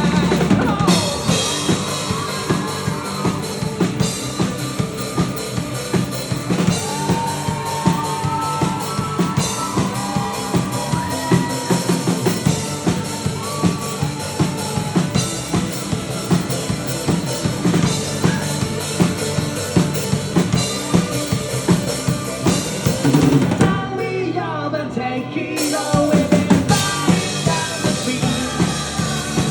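Live rock band playing an instrumental passage, the drum kit keeping a steady beat under the other instruments. About 24 seconds in, the band drops away for a second or so, then comes back in full.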